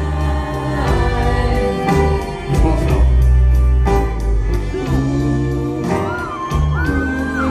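Live band music with a steady bass line, drum hits and a sung vocal line; the singer glides between held notes near the end.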